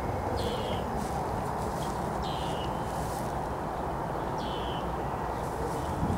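A bird calling three times about two seconds apart, each a short note sliding downward, over a steady low outdoor background rumble.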